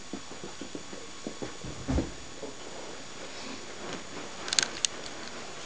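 Border collie scrabbling and pawing at a quilted throw on a leather armchair: rustling fabric with small knocks, a heavier thump about two seconds in, and a quick cluster of sharp scratches near the end.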